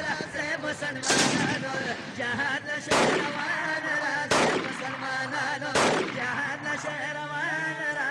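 Music: sustained, wavering pitched tones, with a heavy percussive hit about every one and a half seconds.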